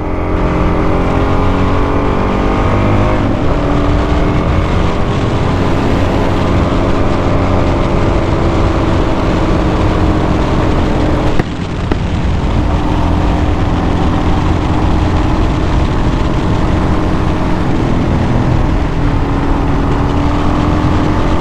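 Kawasaki KLX 300 dual-sport motorcycle's single-cylinder engine running under way: its pitch climbs as it accelerates, drops at a gear change about three seconds in, then holds fairly steady at cruising speed, with a brief drop in the throttle about halfway through.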